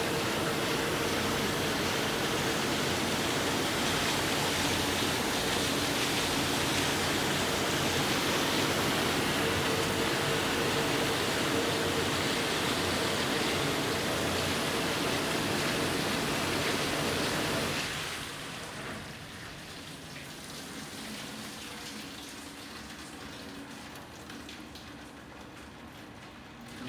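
Hobart UXT 10N commercial dishwasher running its wash cycle: a steady rush of water spraying inside the cabinet. About 18 seconds in the spray cuts off and a quieter sound of water with a low machine hum carries on.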